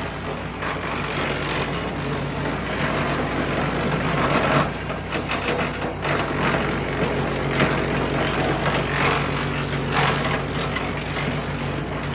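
MechMaxx P4205 5-inch wood chipper running, its gas engine holding a steady note, with louder noisy surges every couple of seconds as material goes through it.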